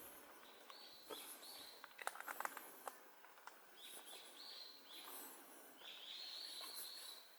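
Small forest birds calling, faint: repeated short, high, clipped notes in scattered runs, with a brief patter of sharp clicks about two seconds in.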